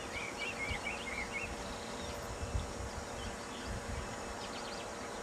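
Steady low drone of a Boeing 757-200 airliner on final approach with its landing gear down. A bird chirps a quick warbling phrase in the first second and a half, with a few more faint chirps later.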